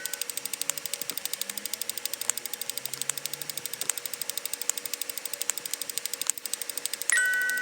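Rapid, even electronic clicking, about nine clicks a second, over a faint steady hum. Near the end a bright two-tone chime rings out and fades.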